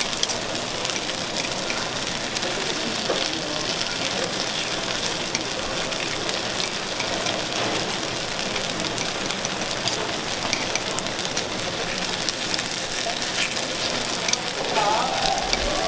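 Food sizzling on a hot griddle: a steady hiss crowded with small crackling pops.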